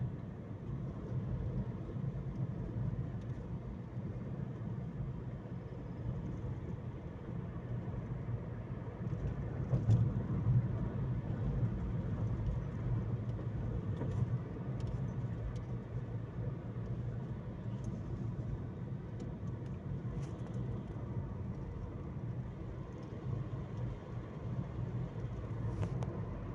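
Steady low rumble of a car driving, swelling a little about ten seconds in.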